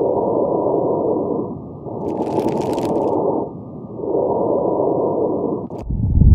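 Stethoscope recording of breathing with crackles (rales), the coarse popping of fluid in the airways heard in pneumonia, pulmonary edema or heart failure. Three muffled breaths come about two seconds apart. Near the end there is a short loud low thud.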